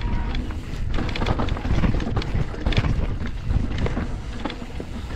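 YT Decoy e-mountain bike descending a dirt trail: a steady rumble of tyres rolling on dirt and wind buffeting the microphone, broken by many quick knocks and rattles as the bike runs over bumps.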